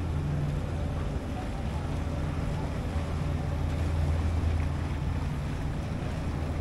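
A low, steady machine hum that holds level throughout.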